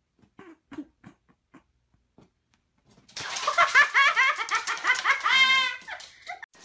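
A few faint soft knocks, then about three seconds in a person bursts into loud, high-pitched laughter in quick repeated pulses, which trails off about three seconds later.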